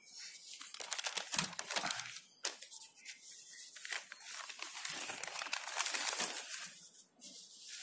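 Notebook paper rustling and crinkling as pages are handled and turned, in irregular crisp bursts.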